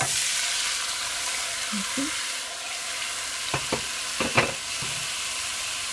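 Diced tomato, onion and garlic dropped into hot oil in a pot, frying with a steady sizzle that starts suddenly as they go in. A few light knocks about three and a half to four and a half seconds in.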